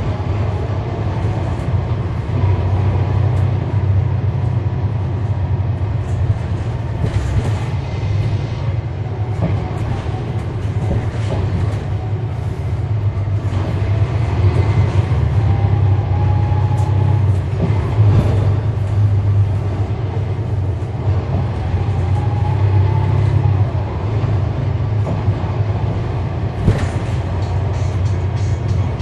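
A NABI transit bus with a Cummins ISL9 inline-six diesel, heard from on board while driving: a steady low engine drone with road noise and interior rattles and clicks. A faint rising whine comes in twice, about halfway through and again near two-thirds of the way.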